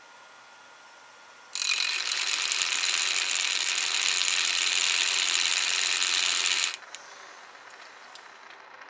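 Red 3D-printed plastic spur gears (0.8 module) spun fast, their teeth meshing in a loud, steady whir. It starts about a second and a half in, runs for about five seconds and cuts off suddenly, leaving a faint rattle.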